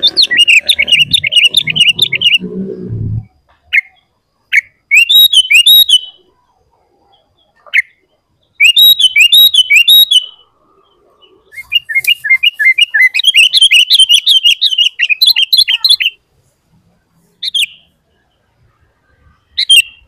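Sooty-headed bulbul singing loudly in fast runs of chattering, sweeping notes, in phrases of one to four seconds with short single calls between them. Some low noise sits underneath during the first three seconds.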